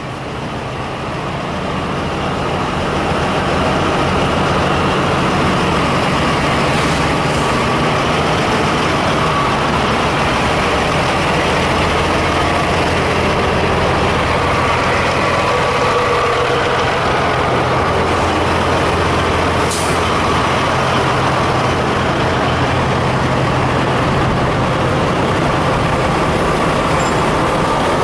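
Diesel truck engines idling steadily close by, growing louder over the first few seconds. A brief high hiss comes about twenty seconds in.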